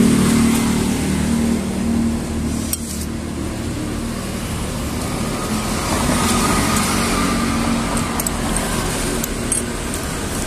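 Steady city road traffic passing close by, with the hum of vehicle engines rising near the start and again around the middle.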